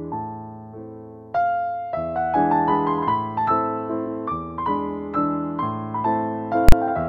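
Background piano music, single notes and chords struck and fading, growing fuller about a second and a half in. A single sharp click near the end.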